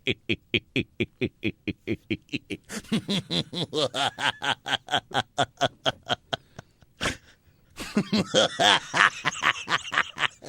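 Men laughing hard in quick, rhythmic bursts of about four or five a second, with a short break about seven seconds in and then a louder round of laughter.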